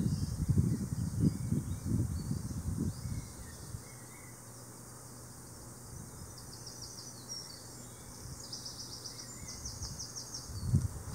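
Outdoor ambience in which an insect chirps in short trains of rapid, evenly spaced high pulses, twice in the second half, the kind of chirping a grasshopper or cricket makes. Irregular low rumbling gusts fill the first few seconds and come back near the end.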